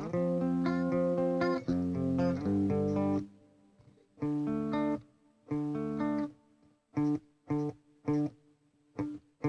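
Guitar played through a Phenyx Pro PTM-10 wireless in-ear monitor system: ringing chords for about three seconds, then short, separate chord stabs with gaps between them that come closer together near the end. A hiss comes up along with each note, the noise fault of this in-ear system.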